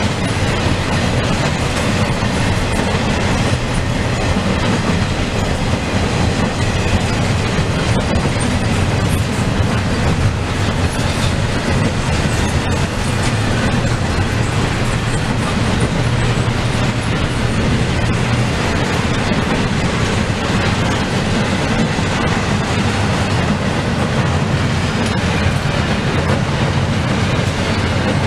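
Container well cars of a CSX intermodal freight train rolling past: a steady rumble of steel wheels on the rails with occasional clicks.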